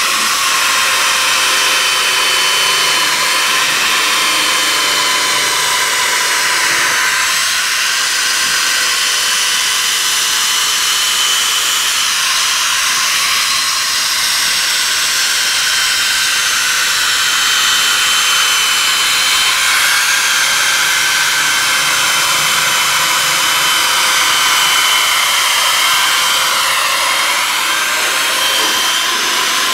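Small corded power tool spinning a wire brush wheel against a rusty steel truck bed rail, scouring off the rust. It makes a steady high whine whose pitch wavers slightly as the wheel is pressed and moved along the metal.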